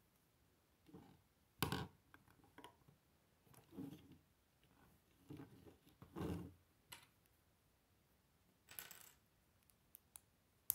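Plastic Lego bricks being handled, pressed together and set on a wooden tabletop: a scattered series of soft knocks and clicks, the loudest about two seconds in, with a brief rattle a little before the end and small sharp clicks at the end.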